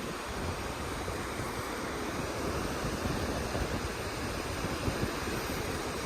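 Wind buffeting the microphone over a steady wash of surf, a continuous rushing noise with an uneven low rumble.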